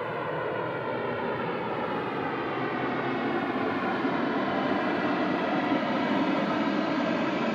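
Airplane flying overhead: a steady rushing engine drone that grows slowly louder.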